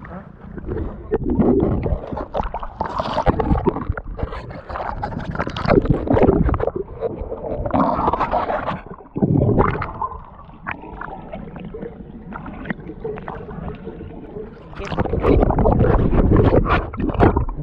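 Water sloshing and gurgling around an action camera's waterproof housing as it dips underwater and comes back up, with muffled splashing. It is loudest near the end, as the camera breaks the surface.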